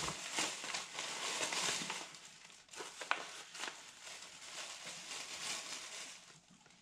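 A white plastic takeout bag and a Popeyes paper sandwich bag crinkling and rustling as they are handled, with a few sharper crackles partway through. It dies down near the end.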